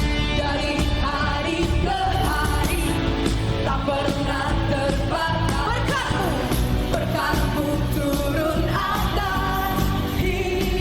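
Worship song with a singer's voice over a full pop-rock band, drums keeping a steady beat.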